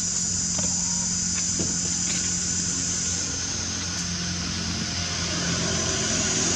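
Steady high-pitched drone of an insect chorus, with a low steady hum underneath and a few faint ticks in the first two seconds.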